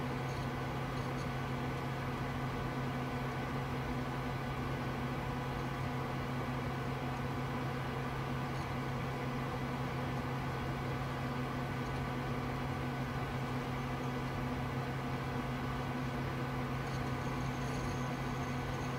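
Steady whir and hum of a running desktop computer's cooling fans, with a strong low steady tone under an even rushing noise and no change in pace.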